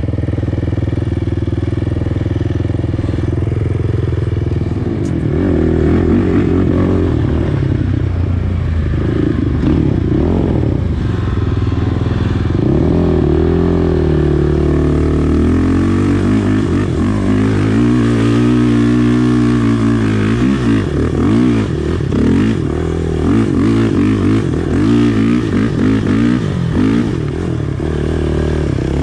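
Honda TRX450R sport quad's single-cylinder four-stroke engine being ridden. It holds a steady pitch for the first few seconds, then revs up and down again and again with the throttle.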